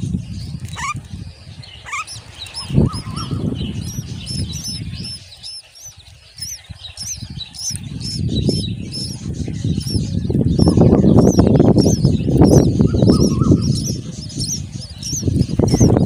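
Common myna nestlings begging with a fast run of thin, high chirps while the adult feeds them at the nest. Loud rustling and wing-flapping at the nest fills the second half.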